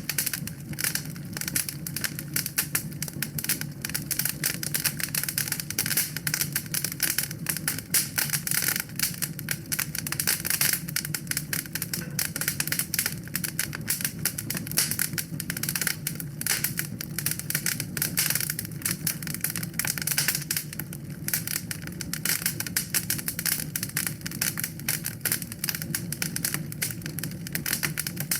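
Wood fire crackling in a fireplace: dense, rapid crackles and pops over a steady low rumble of the flames.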